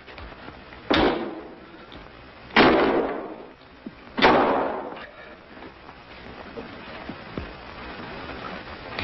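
Three sudden loud crashes, about a second and a half apart, each dying away over roughly a second.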